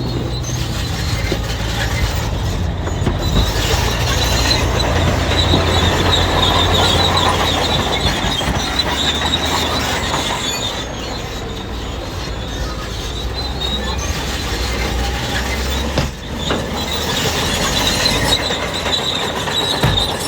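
Crawler bulldozer working: its diesel engine runs steadily under load while its steel tracks squeal with a high, wavering squeal that comes and goes.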